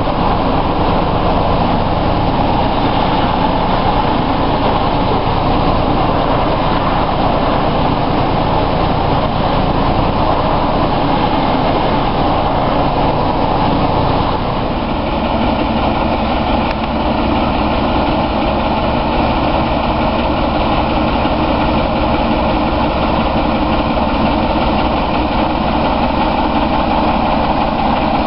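Diesel engine of a British Rail Class 07 shunter, a Paxman six-cylinder, running continuously, heard from aboard the moving locomotive. About halfway through the sound cuts to a steadier, even engine note.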